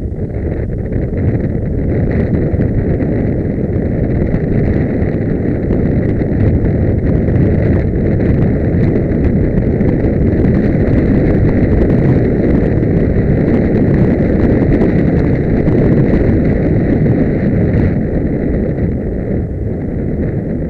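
Wind rushing over a helmet-mounted camera's microphone as a horse gallops across grass, with its hoofbeats underneath. The rush builds over the first couple of seconds and eases a little near the end.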